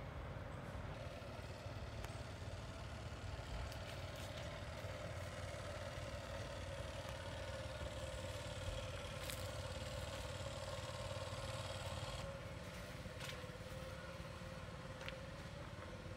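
Distant motorboat engine running with a steady drone, easing slightly about twelve seconds in.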